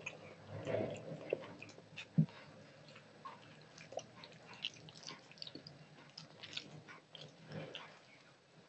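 Eating by hand: fingers mixing rice and dal on a steel plate, with small scattered clicks, squelches and chewing, and one sharper click about two seconds in.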